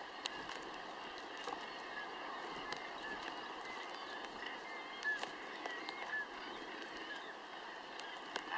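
Northern gannet breeding colony: a steady din of many seabirds calling at a distance, with short, sharp calls scattered throughout.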